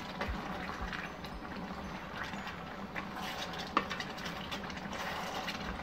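Pieces of kid goat simmering in a cornstarch-thickened garlic sauce in a large pan, with light bubbling and crackling while a wooden spoon stirs through them. One sharper tap about two-thirds of the way through.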